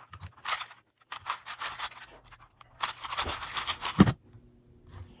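A Rubik's Speed 2x2 speed cube being turned fast, its plastic layers making bursts of scratchy clicking turns, with a thump about four seconds in.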